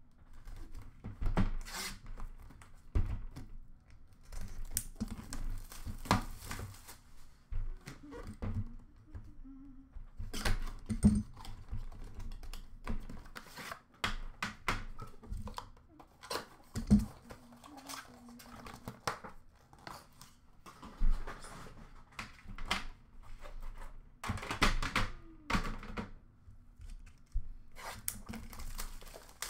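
Wrapping being torn and crinkled off a metal trading-card tin, with irregular clicks and knocks as the tin and its lid are handled and set down on a glass counter.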